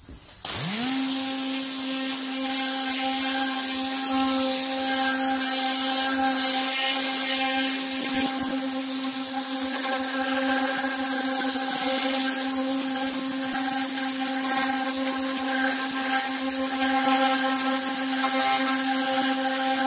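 Tornador Black air-powered cleaning gun running on compressed air, spraying diluted degreaser onto a canvas sneaker. It makes a loud, steady hiss with a hum under it; the hum rises in pitch as the tool starts, about half a second in, then holds steady.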